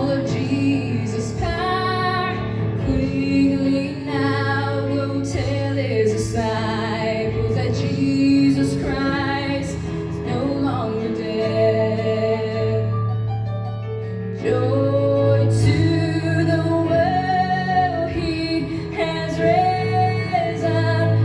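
A woman singing a Christian song about the resurrection, with instrumental accompaniment. The voice drops out briefly about two-thirds of the way through while the accompaniment carries on.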